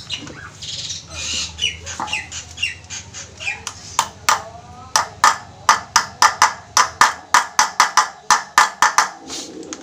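Hammer tapping a ball bearing into the bored-out bearing housing of a motorcycle drum-brake hub, metal on metal: about twenty sharp strikes that begin about four seconds in and speed up to around four a second. The housing has been enlarged to take a bigger bearing instead of being shimmed.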